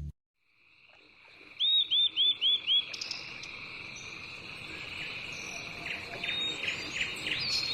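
Birds calling over a steady insect drone. The drone fades in just after a moment of silence. One bird gives five quick, loud chirps in a row a second and a half in, and more chirps follow near the end.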